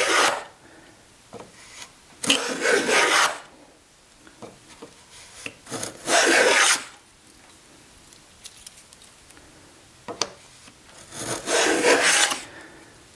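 Wooden 1/8-inch beading plane set to a fairly heavy cut, shaving a bead along a board's edge: three rasping strokes of about a second each, with fainter scrapes and a click between them.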